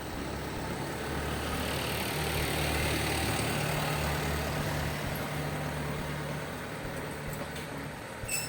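A motor vehicle's engine running with a low hum as it passes, the hum and hiss swelling over the first few seconds and then fading. There is a brief sharp click near the end.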